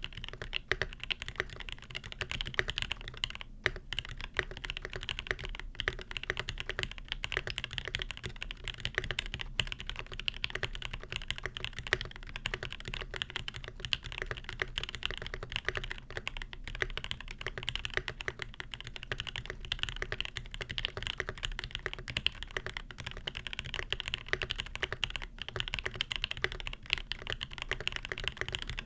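Continuous typing on a Primus custom mechanical keyboard with lubed Alpaca linear switches in a brass plate and JTK keycaps: a dense stream of key clacks, with a brief pause about three and a half seconds in.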